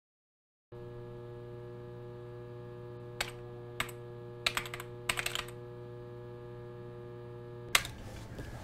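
Computer keyboard keystrokes typing into a search box. Two single key presses come first, then two quick runs of keys, then one louder key press near the end, all over a steady electrical hum.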